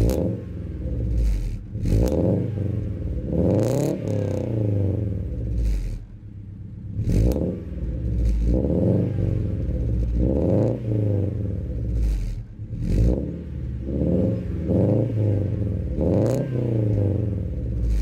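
Honda Civic inline-four fitted with an unequal-length header, revved from idle about a dozen times through its exhaust; each rev rises and falls back within a second or so.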